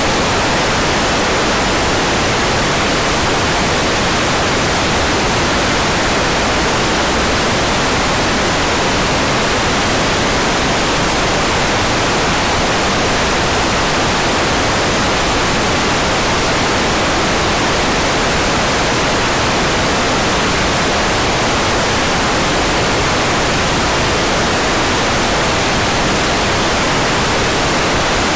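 Hair dryer running steadily on a constant setting: an even, unchanging rush of blown air.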